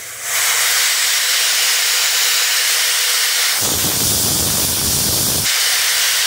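Compressed air blasting steadily out of a small copper line, the chip-clearing air feed on a milling machine: a loud hiss. About three and a half seconds in, a finger is held in the stream and the hiss turns rougher, with a low rumble, for about two seconds.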